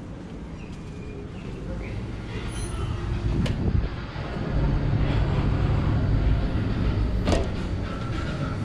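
Low mechanical rumble and hum that grows louder about halfway through, with a steady low drone and two sharp clicks.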